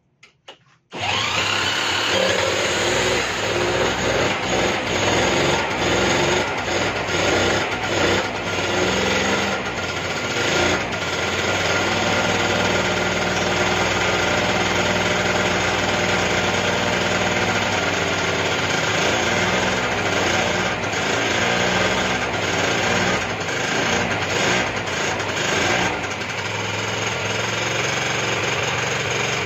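Electric drill spinning the 50cc two-stroke engine of a Junak 806 scooter over by a 14 mm nut, used in place of a starter battery with too little power. It spins up with a rising whine about a second in and runs on continuously, mixed with the small engine's own running.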